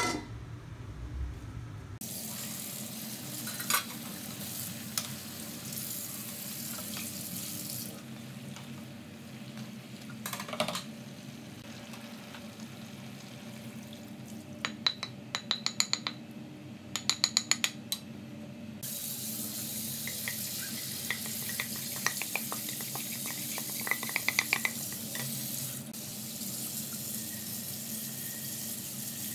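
Chicken cooking in a frying pan with a steady sizzling hiss and a low hum. For a few seconds near the middle, chopsticks clink sharply and rapidly against a plate as coconut milk is scraped from it into the pan.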